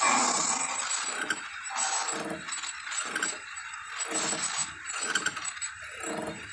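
Lion roaring: a run of short grunting calls in a steady rhythm, about one every 0.7 seconds.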